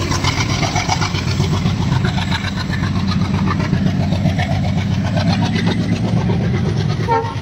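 Mahindra Bolero's diesel engine running steadily with a low, even hum.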